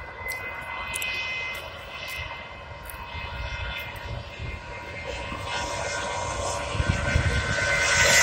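Airbus A320-family jet airliner on the runway, its engines a steady whine over a low rumble. The sound grows louder near the end as the aircraft comes closer.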